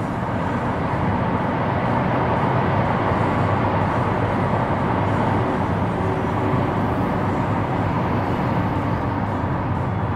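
Steady road noise of a car driving on a freeway, heard from inside the cabin: an even hum of tyres and engine.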